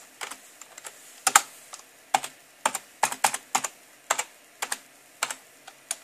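Computer keyboard keys pressed one at a time, uneven separate clicks, as a root password is typed at the prompt and then typed again to confirm it.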